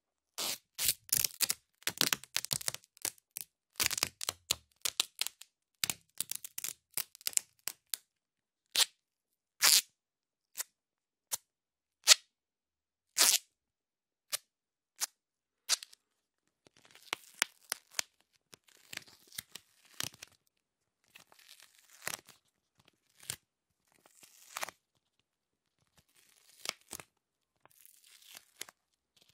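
Adhesive tape pulled and peeled in short jerks: a long run of separate sharp crackles and snaps, loudest in the first half. After about sixteen seconds it gives way to quieter crinkling with scattered clicks.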